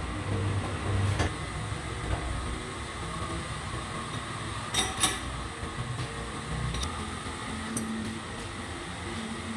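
Steady workshop machinery hum with a few sharp metallic clinks, two of them close together about halfway through.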